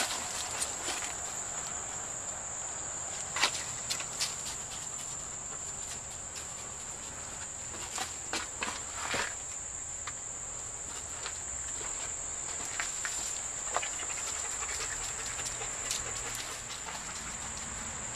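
Insects droning in a steady high-pitched tone, with scattered sharp snaps and crackles of footsteps through brush and leaf litter. The loudest snaps come about three and a half seconds in and again around eight to nine seconds in.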